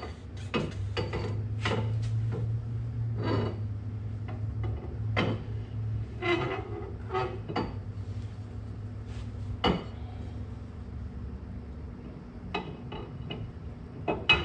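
Steel axle shaft being slid into a Ford 9-inch rear axle housing: irregular metal clinks, knocks and scrapes as it goes in and is turned to line up, over a low steady hum that is strongest in the first few seconds.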